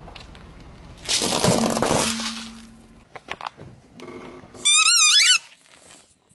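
A plastic bottle of BB pellets crushed under a car tyre: a loud crunch with crackling that runs on for about a second. Near the end, rubber squeaky toys squashed by the tyre give a short, loud, warbling squeal.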